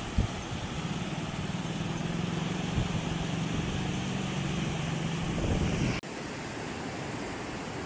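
Sea surf breaking against the shore, with gusting wind on the microphone. A steady low mechanical hum runs through the first five seconds or so. The sound cuts off sharply about six seconds in, and the surf noise carries on more evenly.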